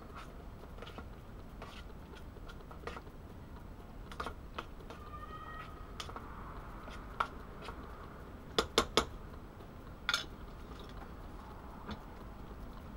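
A spoon stirring baked beans and sausage in a pan, with scattered clicks of the utensil against the pan. Three sharp taps come in quick succession a little past the middle, and one more about a second later. A brief faint tone sounds about five seconds in.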